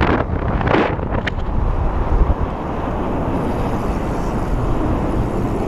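Wind rushing over the camera microphone on a fast-moving electric mountain bike, over a steady low rumble of tyres on pavement. The bright hiss gusts twice in the first second, then drops away, leaving mostly the duller rumble.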